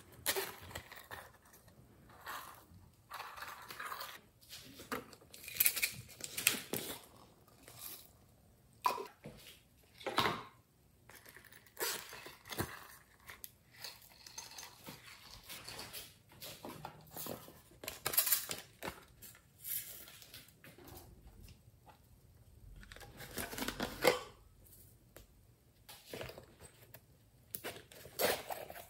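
Hands handling plastic toy containers and slime over a glass dish: irregular clicks, scrapes and rustles as cases are opened and slime and glitter are added, with a few louder knocks.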